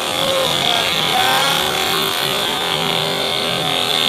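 Racing motorcycle engines running and revving as bikes pass, over a steady crowd din.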